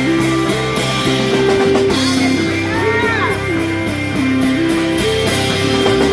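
Instrumental break in a gospel worship song: the band keeps playing under a sustained melody line that steps between long held notes, with guitar in the mix and a brief sliding vocal cry about halfway through.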